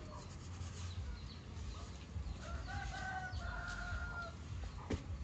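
A rooster crowing once, one long held call starting about two and a half seconds in, over a steady low rumble, with a sharp click near the end.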